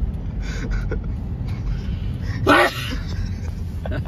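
An elderly man's single loud sneeze about two and a half seconds in, over a low steady rumble.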